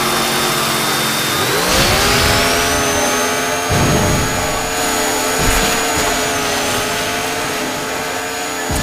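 Cartoon chainsaw sound effect revving up about a second and a half in, then running high and steady as it cuts, with heavy thuds around four and five and a half seconds in.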